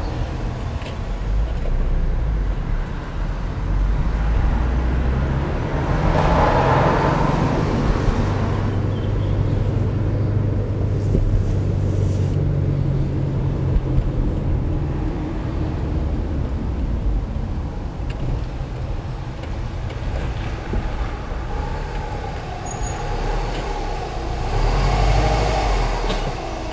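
Car engine running with tyre and road noise, heard from inside the cabin while driving slowly. The engine's drone holds steady through the middle and swells louder about six seconds in and again near the end.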